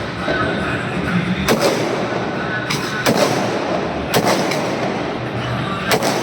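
Aerial firework shells (sky shots) going off in a series of about five sharp bangs at uneven intervals, over a continuous noisy din.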